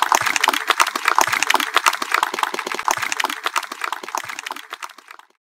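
Audience applauding with many hands clapping, fading out near the end.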